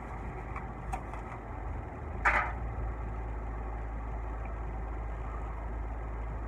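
A steady low hum like an idling engine, with one short crackle about two seconds in while squid salad is being eaten.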